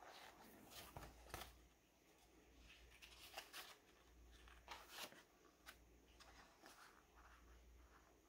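Near silence with faint rustles and a few soft clicks, a hardcover picture book being handled.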